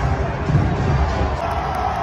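Large stadium crowd of soccer supporters chanting and cheering, with a low beat pulsing about twice a second.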